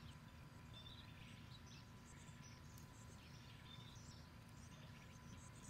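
Faint birdsong: scattered short chirps and whistles from songbirds over a low, steady background rumble.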